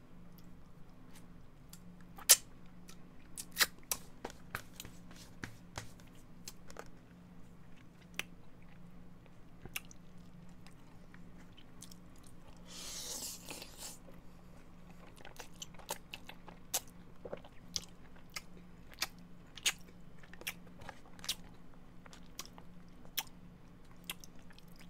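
Close-miked mouth sounds of a person eating spaghetti: chewing with many sharp wet smacks and clicks, and a longer hissing slurp of noodles about 13 seconds in.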